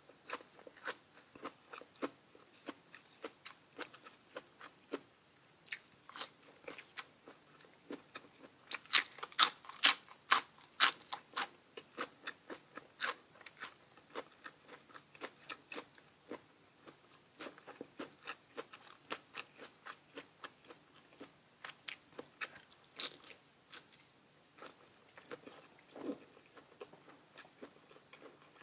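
Close-miked eating: crunchy bites and chewing of crisp food, a steady run of small crunches with a burst of louder ones about nine to eleven seconds in.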